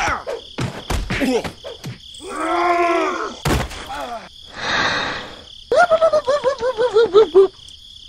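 Squeaky cartoon character voices making wordless groans and cries, ending in a quick run of short notes that fall in pitch. A few sharp comic thuds come near the start and again about halfway.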